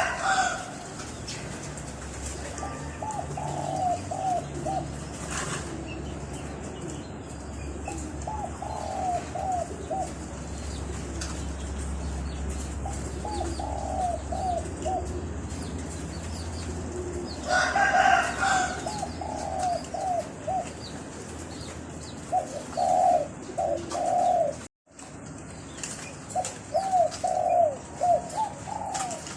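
Doves cooing: repeated phrases of quick, rolling notes every few seconds, with a louder, harsher bird call about 18 seconds in. The sound cuts out for a moment near 25 seconds.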